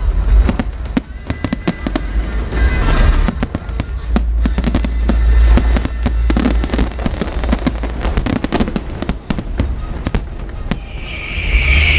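Fireworks display: a rapid, irregular string of sharp bangs and crackles over a steady deep rumble, with music playing underneath. A loud hiss sets in near the end.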